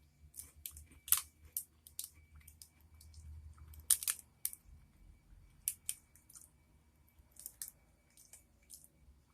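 Chewing of a soft blueberry breakfast biscuit, heard as scattered sharp mouth clicks and smacks at an irregular pace.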